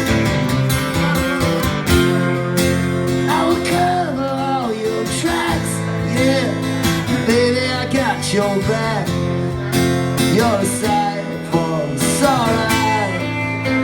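A live band playing an instrumental passage of a country-flavoured song: strummed acoustic guitar chords under a lead line whose notes bend up and down.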